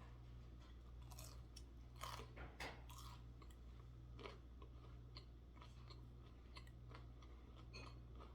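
Faint close-up chewing and crunching of crispy fried food, with scattered small mouth clicks, over a steady low hum.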